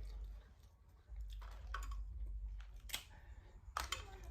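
Faint, scattered clicks and taps of eating at close range, about half a dozen spread through a fairly quiet stretch.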